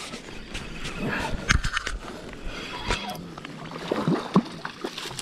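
River water sloshing and splashing, with scattered clicks and a few low knocks.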